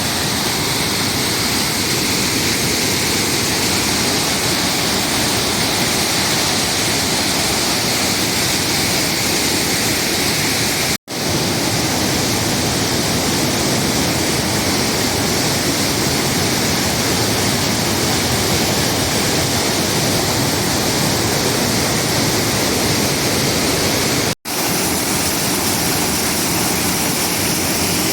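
Watson Falls, a tall waterfall, making a steady, loud rushing roar of falling water. The sound cuts out for an instant twice.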